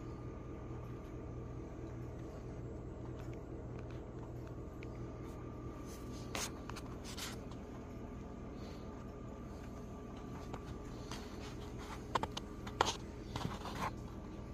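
Low steady electrical hum with a faint steady high-pitched whine from a powered vacuum-fluorescent-display clock board. A few short clicks and rustles come about six seconds in and again near the end.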